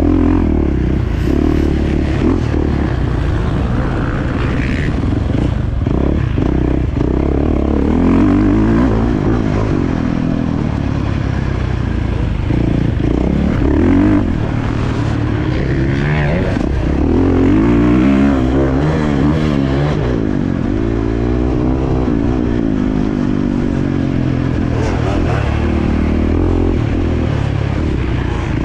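Husqvarna 450 four-stroke dirt bike engine revving up and down as it is ridden around a motocross track, its pitch rising and falling over and over as the throttle opens and closes.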